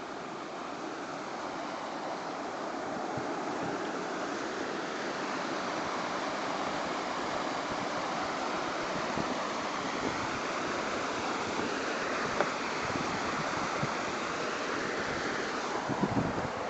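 Snowmelt creek rushing over rocks, a steady whitewater rush that grows louder over the first several seconds, with a sharp tick partway through and a few brief knocks near the end.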